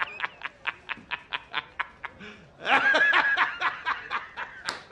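A man laughing hard in quick, even bursts of about four or five a second, breaking into a louder, higher stretch of laughter around three seconds in.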